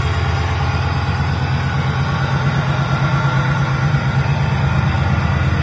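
Alco FA-1 diesel locomotive's 16-cylinder Alco 244 prime mover running steadily, heard loud and close from inside its engine room, a deep even throb.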